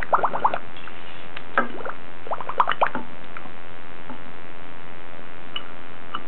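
Two quick clusters of short, sharp, squeaky blips, one at the start and one about two seconds in, over a steady hiss; a couple of faint ticks follow near the end.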